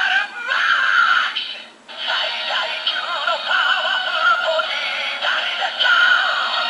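Kamen Rider Ex-Aid DX Gashat toy playing its electronic voice and music effects through a small speaker, thin and without bass, with a short break about two seconds in.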